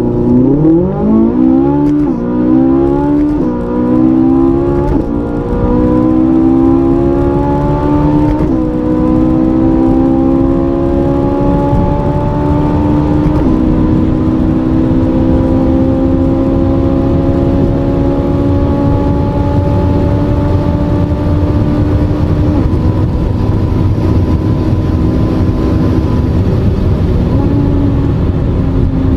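Ferrari 458 Italia's 4.5-litre V8 at full throttle from a standstill, heard from inside the cabin. The engine note sweeps up and drops back at five quick upshifts, from first to sixth gear, then climbs slowly in sixth toward about 290 km/h before easing near the end.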